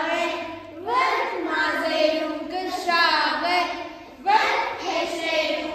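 A group of young children singing together in short phrases, with brief breaks between lines.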